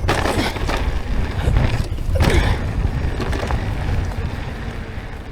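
Wind buffeting the microphone during a bicycle ride, a heavy low rumble with scattered clicks and rattles, dying down near the end.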